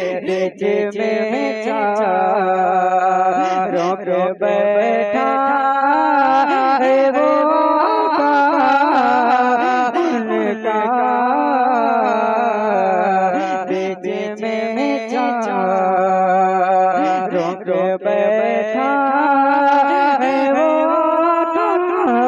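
A man singing a naat solo, drawing out long ornamented notes with wavering, sliding pitch, broken only by a few brief pauses for breath.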